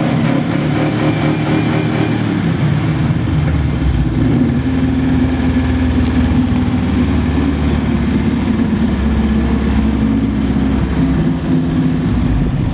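ZAZ-966 Zaporozhets' air-cooled V4 engine running loudly and continuously under load off-road. Its note shifts about four seconds in, then holds fairly steady.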